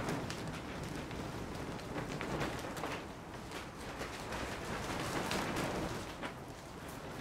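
Steady pattering hiss of rain on the plastic sheeting of a hoop-frame shed roof.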